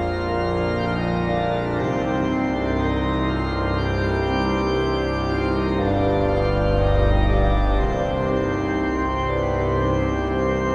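Background music with long, slowly changing held chords.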